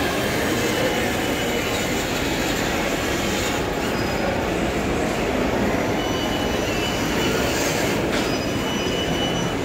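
Battery-powered ride-on toy car driving on a hard marble floor: its electric drive motors and hard plastic wheels make a steady rolling rumble, with a faint thin whine that comes and goes.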